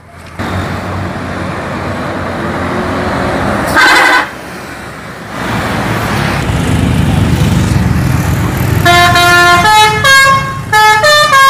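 Tour bus musical multi-tone horn (a 'telolet' horn) playing a quick tune of stepped notes near the end, after one short horn blast about four seconds in, over the running bus engine.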